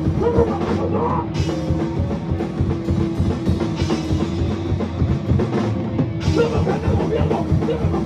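Live ska-core band playing an instrumental passage, loud and steady: a full drum kit with cymbal crashes about every two and a half seconds, under an amplified electric guitar.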